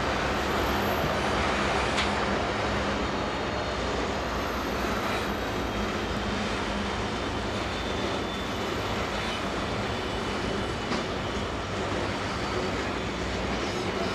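Diesel-hauled coal train: the steady drone of locomotive engines over the noise of the train on the line.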